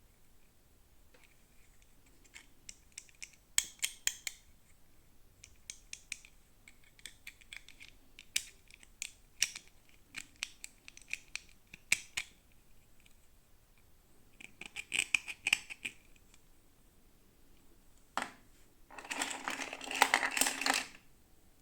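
Toy packaging being handled and opened by hand: scattered sharp plastic clicks and short snipping, scratching sounds, ending in a denser, louder rustling burst a couple of seconds before the end.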